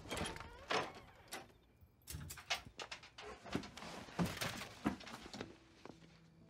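A closet door is opened, then someone rummages through boxes on the closet shelf: a dense run of knocks, clicks and rustles from about two seconds in until about five seconds in.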